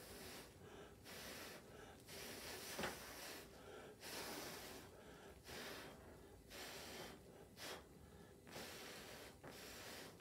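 A man blowing through a drinking straw in a series of short, faint, breathy puffs about a second apart, with quick breaths between. The puffs push wet poured acrylic paint across a canvas, the straw blow-out technique.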